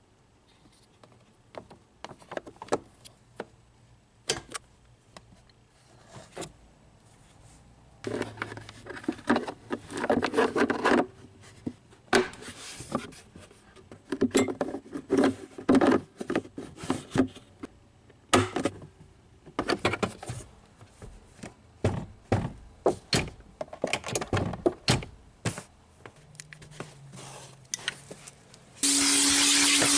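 Irregular clicks, taps and rubbing of hard plastic parts being handled and fitted, in uneven clusters. Near the end a loud, steady hiss with a low hum starts suddenly.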